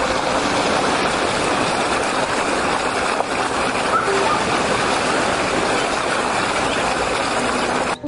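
Shallow stream rushing steadily over rocks, a dense, even rush of water.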